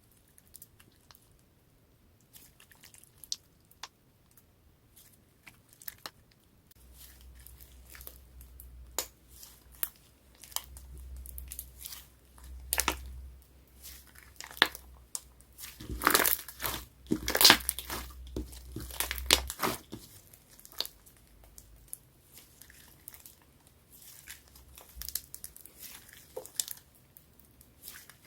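Clear slime being squeezed and stretched by hand, giving sticky pops and crackling clicks that come sparsely at first and grow thick and loud in the middle, over a low rumble of handling.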